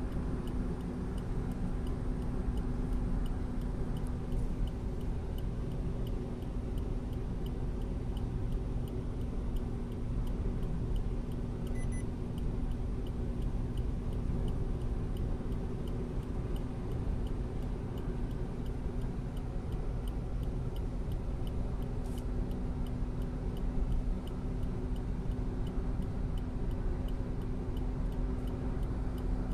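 Steady engine and road hum inside a moving car's cabin, with a small dashboard clock ticking evenly over it.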